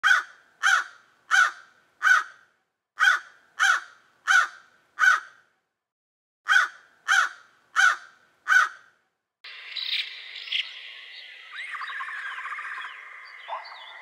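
A bird giving short, loud calls in three series of four, each call about two-thirds of a second after the last, with pauses between the series. About nine seconds in, the sound cuts to a steady outdoor background with small birds chirping.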